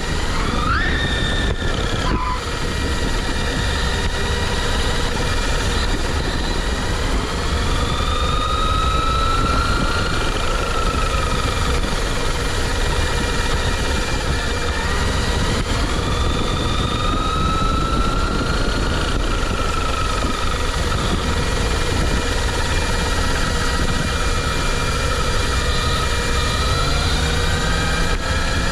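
Brushless electric motor of a 1/8-scale JLB Cheetah RC car (Apex 4076, 2500 KV) driving, its whine rising as the car speeds up and easing off, several times over, above a steady rush of tyre and drivetrain noise.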